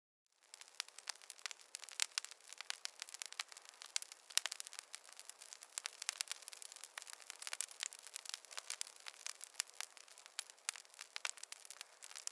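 Campfire of burning wood crackling, with dense, irregular pops and snaps over a soft hiss. It starts a fraction of a second in, after a moment of silence.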